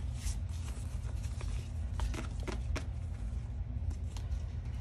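Paper sticker sheets being handled and shuffled: light rustles and a few short soft ticks, over a steady low hum.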